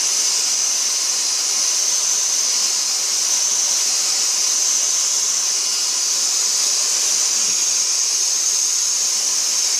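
Dyson DC44 Animal cordless stick vacuum running steadily, its high whine and rush of air unbroken, while it works at a glass topper it will not readily suck up. The owner takes this as a sign of poor suction.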